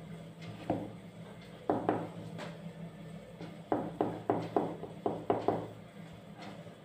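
Small kitchen knife cutting through a slice of white bread on a plastic cutting board: about a dozen short scraping strokes, a few scattered at first, then several in quick succession past the middle, over a faint steady hum.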